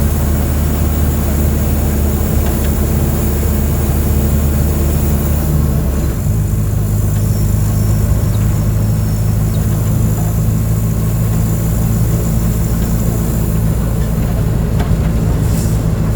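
Mercedes-Benz OF 1722M bus diesel engine running under way, a steady low note. About six seconds in, the engine note steps up to a higher pitch and stays there.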